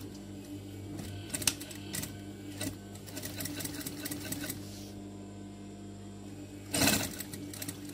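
Sewing machine fitted with a topstitch foot, stitching through vinyl backed with scrim foam, its motor humming steadily under the stitching. There are a few sharp clicks in the first three seconds and a brief louder burst of noise about seven seconds in.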